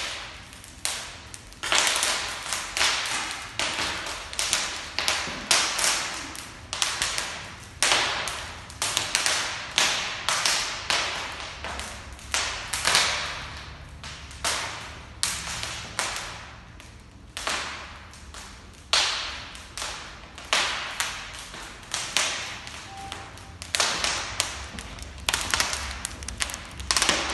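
Wood burning in a fireplace, crackling with irregular sharp snaps and pops, one or two a second.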